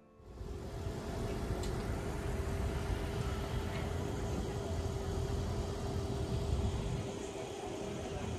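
City street ambience: a vehicle engine running steadily, a constant hum over a low traffic rumble.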